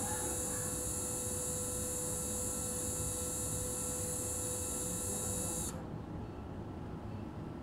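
High-speed otologic drill spinning a 0.8 mm diamond burr against the hydroxyapatite head of a titanium TORP, grinding it down to fit. A steady high-pitched whine that cuts off suddenly near the end.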